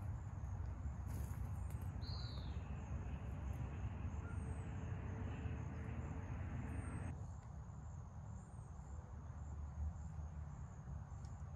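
Footsteps and rustling through leafy undergrowth over a steady low rumble, the rustling stopping abruptly about seven seconds in. Small birds give short chirps now and then.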